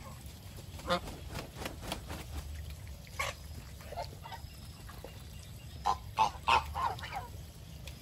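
Domestic geese honking in short, separate calls, with a louder burst of three or four honks about three-quarters of the way through.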